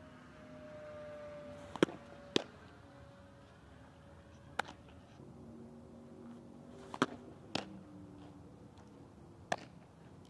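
Softballs popping into leather gloves: about six short, sharp pops spread irregularly, over a faint steady hum that falls slightly in pitch.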